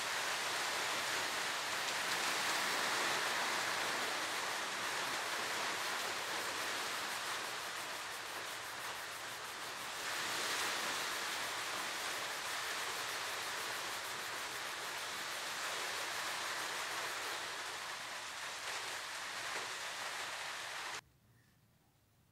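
Steel wool scrubbing the metal body of an old Lockwood padlock, a steady scratchy hiss, cleaning the lock during its restoration. It cuts off abruptly near the end.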